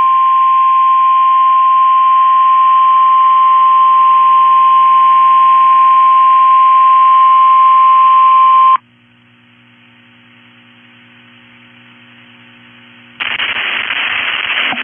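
NOAA Weather Radio's 1050 Hz warning alarm tone, sounded as a test of the warning and alarm transmitter. One steady, loud, high tone lasts about nine seconds and cuts off abruptly. Faint hiss and hum follow, then a loud burst of static-like noise comes in about 13 seconds in.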